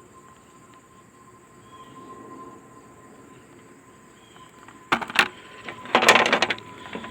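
Nylon Craftsman line clamp pliers being handled and worked: two sharp plastic clicks about five seconds in, then a brief, louder clattering rattle a second later.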